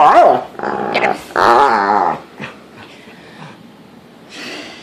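Dog making playful, Chewbacca-like warbling growls while rolling about: three drawn-out wavering growls in the first two seconds, then much quieter.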